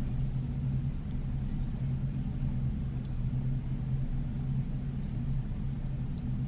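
A steady low rumble with a constant low hum underneath.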